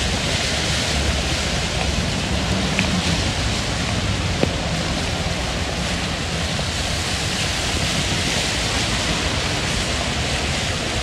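Traffic on a rain-soaked road: a steady hiss of tyres through surface water, with a low engine rumble beneath. A single short click about four and a half seconds in.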